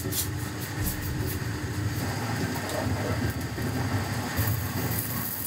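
Steady drone of a commercial kitchen's extraction fan over a charcoal roasting pit, with a few faint crackles in the first second or so as a suckling pig is roasted over the coals.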